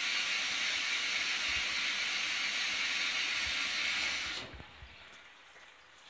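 Water hissing steadily into a 1980 Candy Primato washing machine through its fill valve, cutting off sharply about four and a half seconds in as the fill ends and the machine goes over to static heating; a much quieter background noise carries on.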